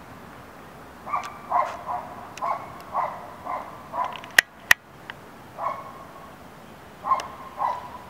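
Short animal calls repeated in a quick series, about two a second for some three seconds, with a few more later. Two sharp clicks about halfway through are the loudest sounds.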